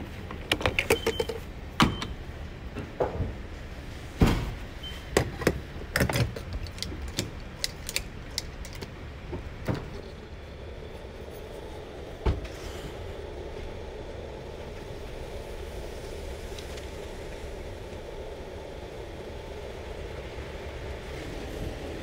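Car sounds: a run of sharp clicks and knocks for about the first ten seconds, then a steady low vehicle hum.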